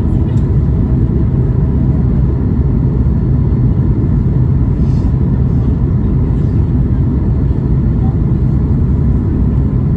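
Steady low rumble of engine and airflow noise inside the cabin of a Boeing 737 MAX 8 airliner, heard from a window seat, with no change in level.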